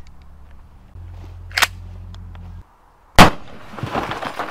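A 12-gauge pump-action shotgun fires a single armor-piercing round about three seconds in, very loud, with a noisy tail dying away after it. A short click comes a second and a half before the shot.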